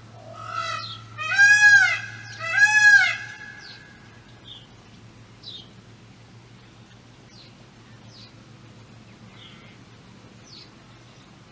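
A large bird calling loudly: two drawn-out notes that rise and fall, about a second apart, in the first few seconds, led in by a softer note. Faint short high chirps of small birds come and go through the rest.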